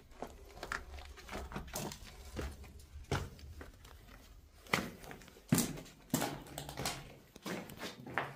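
Footsteps crunching and scuffing on a gritty, debris-strewn floor in a small room, irregular, with a few sharper knocks about five to six seconds in.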